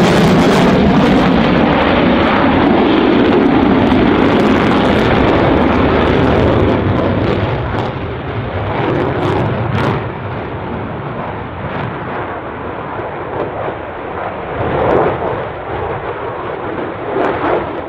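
Lockheed Martin F-22 Raptor's twin Pratt & Whitney F119 turbofan engines, in afterburner during a high-g airshow manoeuvre, making a loud, steady jet roar. The roar drops in level about eight seconds in and then wavers as the jet turns away.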